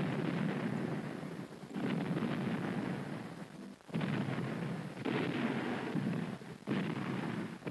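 Battle sound effect of artillery fire: a run of dull explosion booms, each starting suddenly and fading in a rumble, about every one to two seconds.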